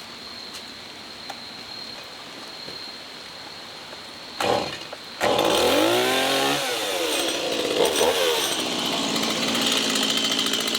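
Small two-stroke chainsaw engine: a short burst about four seconds in, then it starts and runs loudly, revved up and down so its pitch rises and falls.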